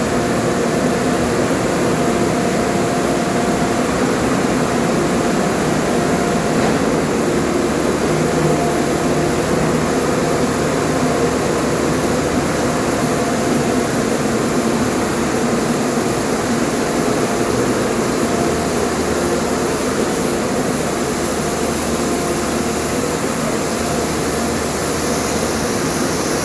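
An engine-driven machine running steadily throughout, a loud even drone carrying several steady tones.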